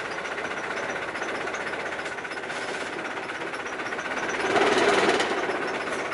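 Canal passenger boat's engine idling at a stop with a rapid, even pulse, swelling louder for about a second near the end.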